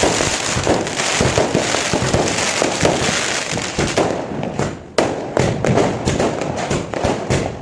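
Diwali firecrackers going off all around in a dense, continuous crackle of bangs, with a brief dip and a sharp fresh volley about five seconds in.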